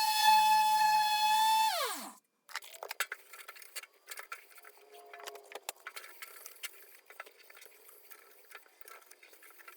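Electric sander whining at a steady pitch, then switched off about two seconds in, its pitch falling quickly as it spins down. Faint clicks and light handling knocks follow.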